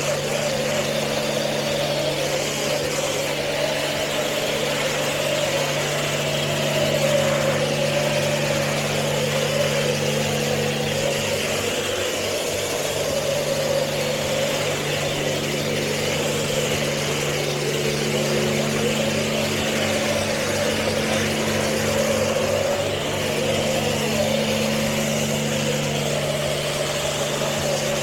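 A 2019 Porsche 718 Cayman T's turbocharged flat-four idling steadily through an automatic car wash, with the wash machinery's steady hiss and hum over it.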